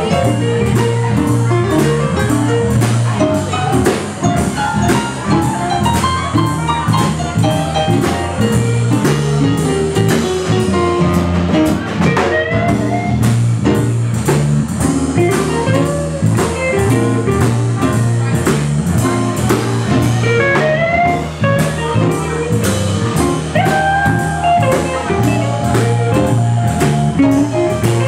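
Small live jazz-blues band playing: electronic keyboard, drum kit and guitar, with a steady beat and a repeating bass line.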